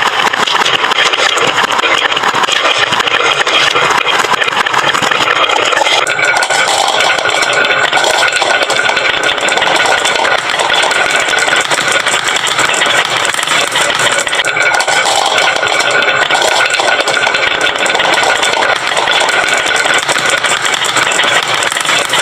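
Many marbles rolling and clattering down wooden marble-run slopes in a continuous dense rattle, changing character about six seconds in, when a faint steady whine joins it.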